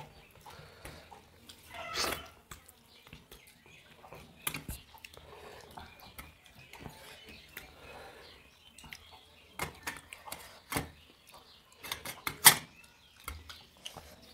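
Eating by hand from stainless-steel plates: fingers scraping and tapping the metal plates, with chewing and scattered small clicks. A sharp clink on the plate near the end is the loudest sound.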